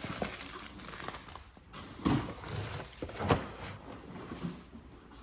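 Handling noise from a boxed Funko Pop figure, cardboard and plastic: scattered light knocks and rustles, the sharpest about two seconds and three seconds in.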